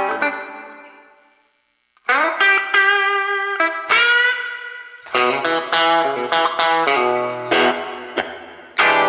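PRS Silver Sky SE electric guitar playing blues licks: a phrase rings out and fades to silence about a second and a half in, then it comes back with a note bent up, held notes and runs of picked notes.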